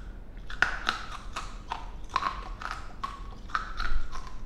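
A person chewing a big mouthful of hard, sticky candy made from melted lollipops: moist crunching and clicking strokes, about two to three a second.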